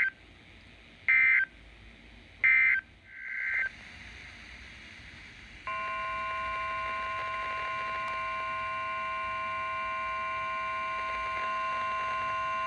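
Three short bursts of the EAS digital data tones (SAME code), about a second and a half apart, then a brief rising burst. About six seconds in, a loud steady alert tone made of several fixed pitches starts, signalling that a new warning is about to be read.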